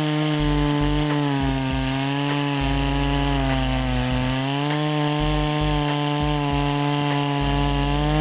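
Efco MT 8200 82 cc two-stroke chainsaw running at high revs while cutting wood, its engine pitch dipping a little now and then as the chain loads in the cut.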